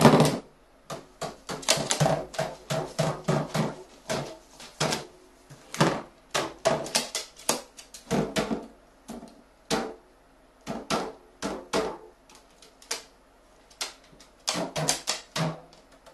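Carrion crow pecking at and pushing over a small drink bottle on a wooden table: quick, irregular taps, knocks and clatter from beak, claws and bottle. They come in clusters with short pauses, thick at first, sparser in the middle and thick again near the end.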